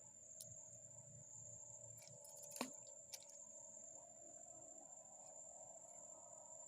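Near silence with a faint, steady high-pitched insect trill, as of crickets, and a few small clicks, the sharpest about two and a half seconds in.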